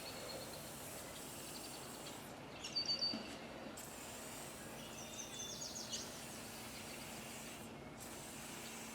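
Faint steady background noise. A few soft bumps come about three seconds in, short high chirps around the middle, and a faint low hum joins about six seconds in.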